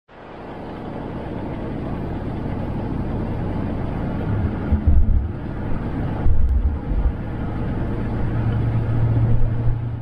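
Car driving on a paved road, heard from inside the cabin: a steady rumble of tyres and engine, with a few low thuds about halfway through and a low hum that grows stronger near the end.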